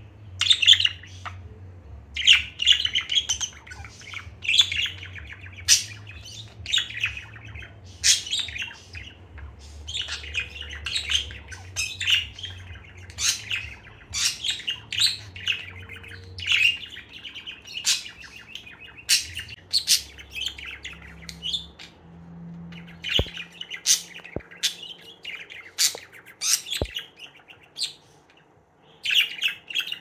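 Budgerigar chirping: a long, quick string of short, high chirps with a brief pause a little before the end.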